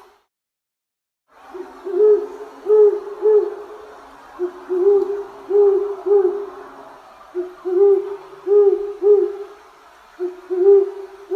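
An owl hooting: after about a second of silence, a string of short hoots in groups of three or four, the groups a moment apart.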